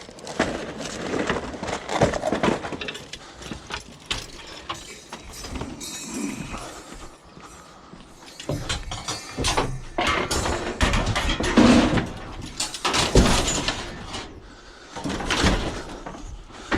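Irregular knocks, clanks and rattling clatter of objects being handled. It is louder and busier in the second half, with a low rumble under it.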